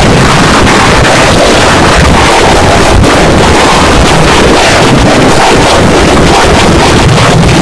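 The soundtrack of a Nickelodeon bumper pushed through heavy digital distortion effects: a loud, clipped, steady wall of noise with no recognisable tune.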